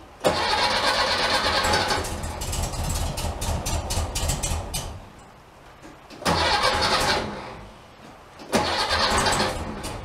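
A 1964 Volkswagen Beetle's 1500cc air-cooled engine is cranked on the starter three times. The first crank runs about five seconds and turns uneven in its second half, then come two short cranks of about a second each, and it does not settle into an idle. It is a hard start that the owner thinks needs some carburetor adjustment to cure.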